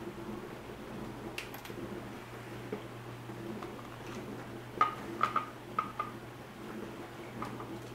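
Dishwasher running with a steady low hum. A light click comes about a second and a half in, and a few short metallic clinks and ticks come around five to six seconds in.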